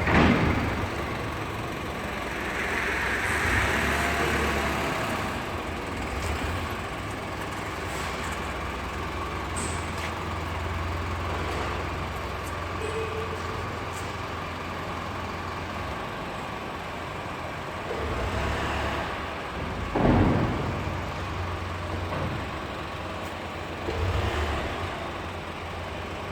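Milling machine running steadily while machining holes in a steel coupler adapter: a low hum with a faint steady whine over a noisy haze, and a louder swell about twenty seconds in.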